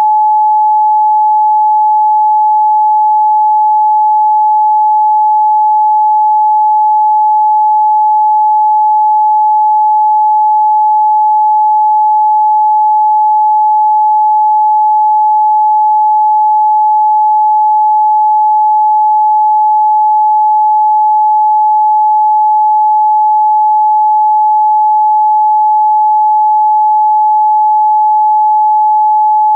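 Pure 855 Hz sine test tone, a single steady high hum held at constant loudness with no other sound.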